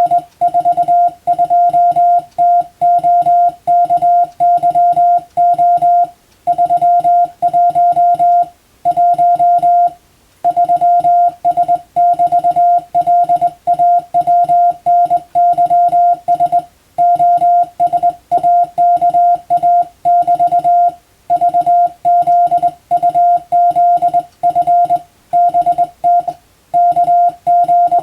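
Morse code (CW) sent by hand on a telegraph key, heard as a single steady beep keyed rapidly into dots and dashes. The characters run in groups separated by short pauses, as words of a practice telegram.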